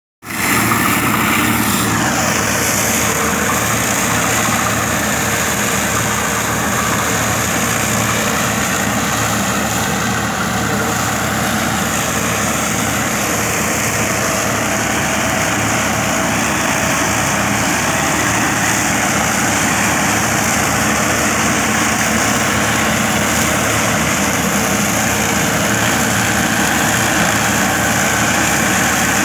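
Tractor engine running steadily under load while driving a Farm Mate rotary mulcher whose spinning rotor shreds dry straw and stubble: a loud, even mechanical drone mixed with the rush of the blades through the straw.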